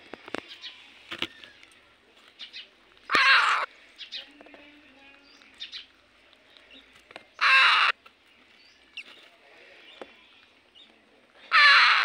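Parrot chicks giving harsh calls of about half a second each, three times roughly four seconds apart, with faint scratching and clicks between.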